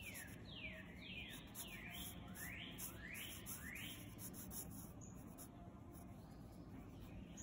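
A bird calling a quick series of sweeping chirps, about three a second, that stops about four seconds in.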